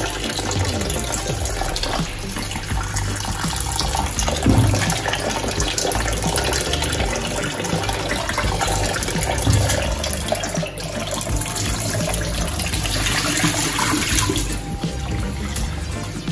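Kitchen tap running in a steady stream into a glass bowl of sorrel (hibiscus) calyces in a stainless steel sink. Water splashes over the calyces as hands rinse and rub them, with a couple of soft knocks from handling.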